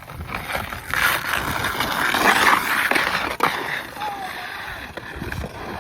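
Skateboard wheels rolling with a rough hiss that swells and then fades off, and a single sharp knock a little past three seconds in.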